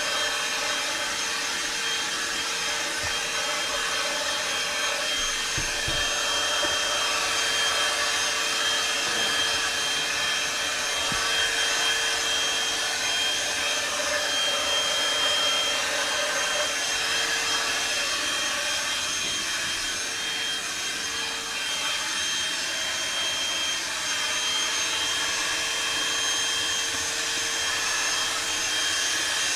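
Einhell PXC TE-VC 18 Li cordless handheld vacuum cleaner running steadily: a constant motor whine over the hiss of rushing air.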